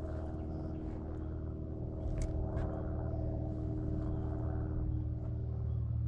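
Boat motor running with a steady low hum, with a couple of light knocks a little after two seconds in.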